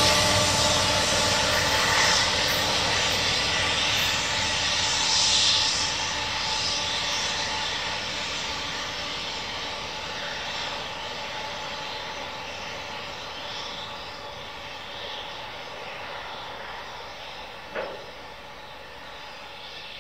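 Diesel locomotives and cars of a freight train running past and drawing away, a steady engine drone and rolling noise that fades gradually. A single brief knock sounds near the end.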